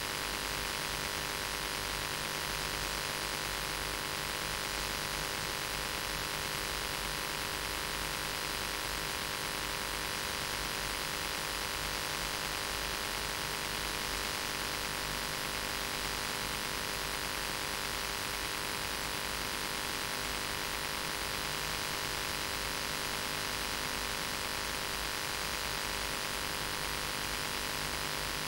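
Steady hiss with an electrical hum and buzz, unchanging throughout; no voice can be heard over it.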